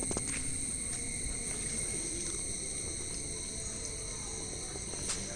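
Steady insect chorus, crickets giving several continuous shrill tones at once, over a low outdoor rumble with a couple of faint clicks.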